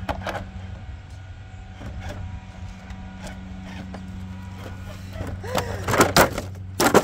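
RC rock crawler truck rolling over onto its roof on concrete rubble, with a few sharp knocks and clatter near the end as its body hits the slabs. A steady low hum runs underneath, and a short exclamation comes among the knocks.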